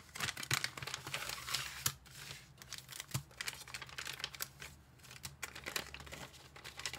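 Packaging being handled and opened: crinkling and rustling with quick clicks and taps, busiest in the first couple of seconds and lighter after.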